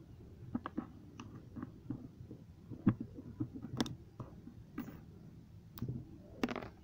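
Double-edged razor blade cutting into a plastic ballpoint-pen barrel. Irregular sharp clicks and crunches come as the blade bites and the plastic gives, and the loudest is about three seconds in.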